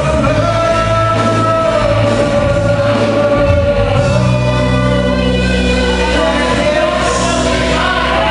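Live gospel praise band playing with a singer holding one long high note for about four seconds, then moving to a slightly lower held note, over a steady band backing.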